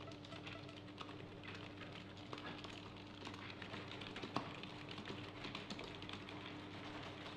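Typing on old beige plastic computer keyboards: a steady, dense patter of key clicks, with one louder keystroke about four and a half seconds in. A steady low hum runs underneath.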